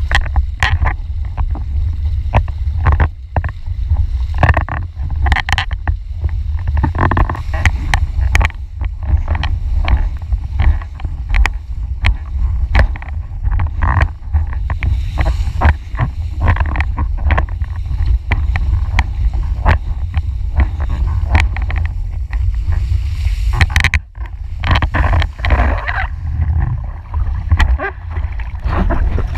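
Wind blasting across the microphone of an action camera on a windfoil rig: a heavy, steady rumble broken by constant irregular crackles and buffeting, with water rushing and spraying off the board. There is a brief lull about three-quarters of the way through.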